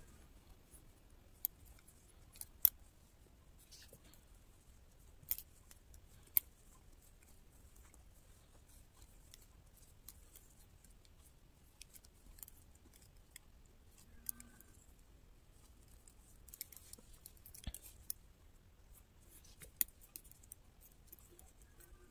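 Metal double-pointed knitting needles clicking against each other while a sock is knitted in the round. The clicks are sharp and scattered, a second or more apart, and come more often near the end.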